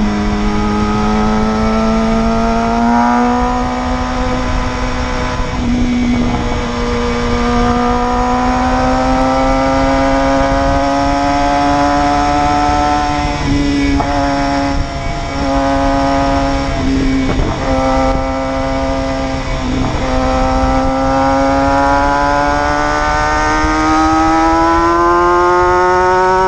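Motorcycle engine running hard at highway speed, its pitch slowly climbing. The throttle eases off briefly a few times in the middle, then the engine accelerates again near the end, over steady wind rush.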